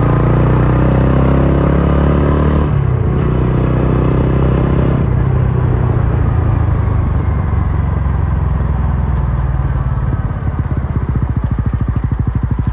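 TVS Ronin's single-cylinder engine and exhaust running under way from the rider's seat: it pulls strongly, with two brief breaks in the note about 3 and 5 seconds in as it shifts up. From about 10 seconds the throttle is off and the revs drop until the separate exhaust beats pulse one by one as the bike slows.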